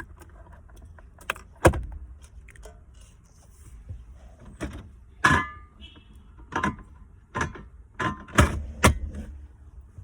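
Irregular knocks and clinks, about nine in ten seconds, some with a short metallic ring, over a low steady hum.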